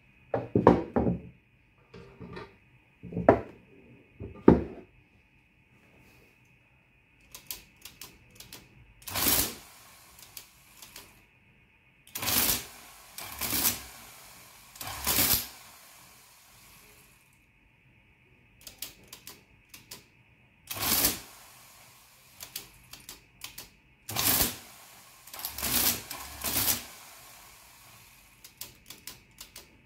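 A 1956 Olivetti Tetractys electromechanical printing calculator running with its body off. Number keys click in, then the motor drives the exposed levers and printing mechanism through a series of loud clattering cycles about a second long as it adds and then subtracts. In the first few seconds there are a few dull thuds as the loose body shell is set down on the desk.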